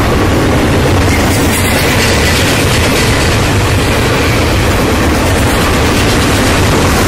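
Union Pacific intermodal freight train's double-stack container and trailer cars rolling past: a loud, steady rumble of steel wheels on the rails.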